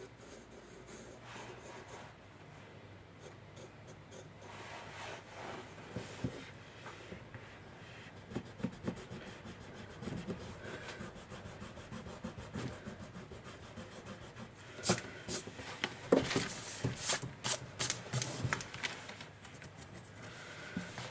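Pencil sketching on sketchbook paper: a steady run of faint scratchy strokes, with a cluster of quicker, louder short strokes past the middle.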